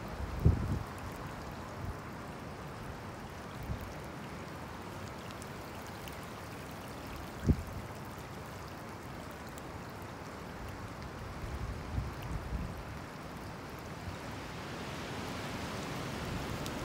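Steady rain falling through a night thunderstorm, with a few brief low thumps, the sharpest about halfway through. The rain grows heavier near the end.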